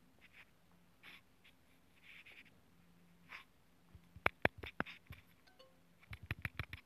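Fingertip taps on a phone touchscreen: a quick run of sharp clicks about four seconds in and another run near the end, with a few soft breathy hisses before them.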